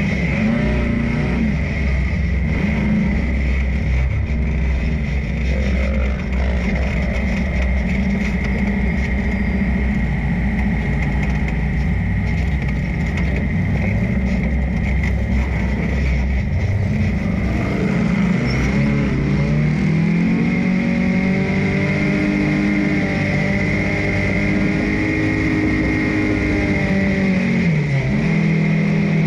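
Dune buggy's engine running and revving on board as it climbs and drops over sand, its pitch rising and falling with the throttle. A heavy low rumble through the first two-thirds gives way to clearer rising and falling revs near the end, over a steady high whine.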